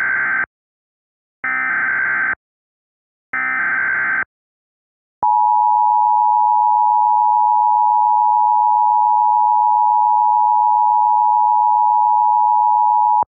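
Emergency Alert System SAME header: three one-second bursts of digital data tones, the first already under way. These are followed by the EAS attention signal, a steady two-tone alarm at 853 and 960 Hz, held for about eight seconds before it cuts off.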